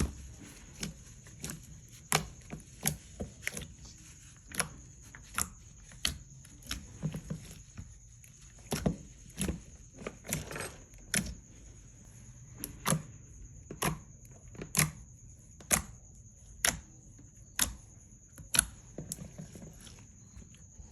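Glossy slime being pressed and folded by hand, giving sharp popping clicks as trapped air bubbles burst, about one a second at an uneven pace.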